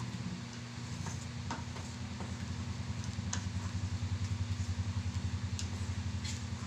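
Wooden fork stirring a thick white sauce in a small frying pan, with a few sharp taps of the fork against the pan. Under it runs a steady low hum that pulses rapidly in the second half.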